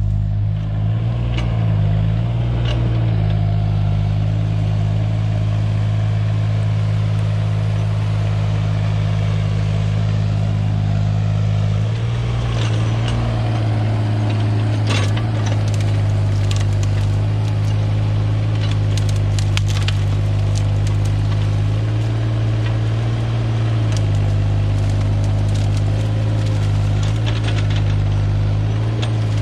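Excavator engine running steadily at working revs, its pitch dipping and rising as the hydraulics take load. From about 12 to 20 seconds in, sharp cracks and snaps of wood as logs are handled.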